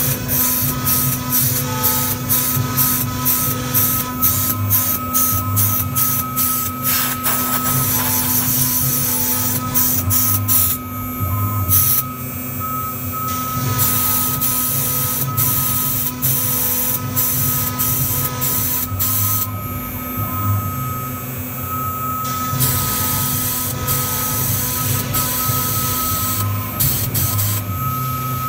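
CNC router engraving lettering into a board with a small engraving bit. The spindle whines steadily while the cutting hiss starts and stops in quick pulses as the bit traces each letter stroke, with two brief quieter pauses.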